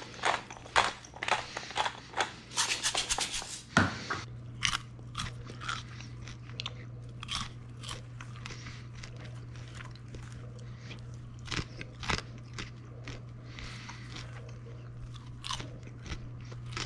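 A pepper mill being twisted by hand, a quick run of gritty clicks for the first few seconds, then popcorn being crunched and chewed in scattered bites. A steady low hum runs underneath.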